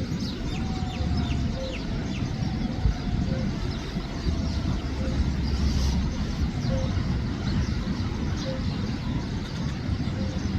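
Sparrows chirping in short high notes, most densely in the first couple of seconds, over a steady low rumble of traffic.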